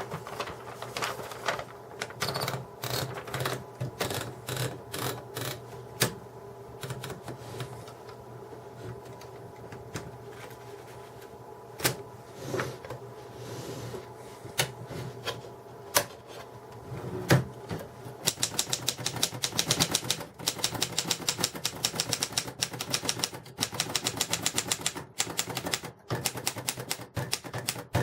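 1961 Erika 10 manual portable typewriter being typed on. At first the key strikes come singly and scattered; about two-thirds of the way in they become a fast, steady run of clacks, about five or six a second.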